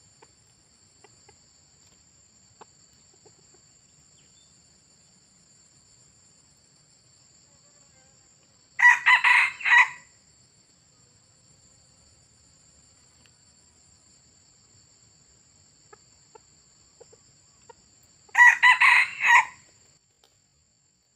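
Red junglefowl crowing twice, about ten seconds apart, each crow lasting about a second and broken into several short notes, over a steady high insect drone.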